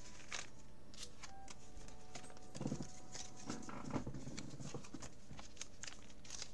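Trading cards being handled and slid in and out of a ring binder's plastic pocket pages: scattered light clicks and plastic rustles, with a couple of slightly fuller knocks about two and a half and four seconds in.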